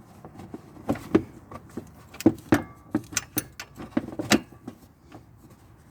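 Metal tools and parts clinking and knocking in a string of irregular sharp clicks, from hand work on a truck's newly fitted belt tensioner pulley.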